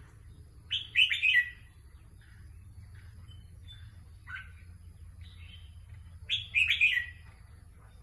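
Red-whiskered bulbul singing: two short, loud phrases of quick, warbling notes about five and a half seconds apart, with a softer single call between them.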